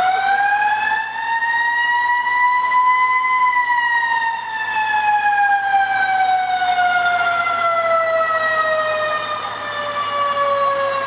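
A siren sounding one long wail: its pitch climbs over the first few seconds, then slowly falls away.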